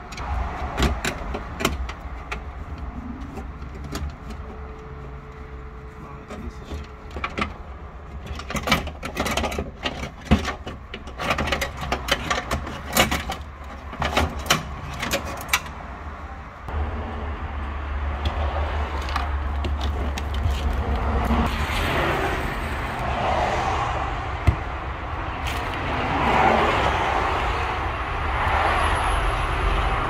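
Clicks, knocks and rattles from tools and parts being handled on a Honda CR-V door as its latch and lock motor are removed, thick through the first half. From about halfway a steady rumble, like a running vehicle or passing traffic, takes over.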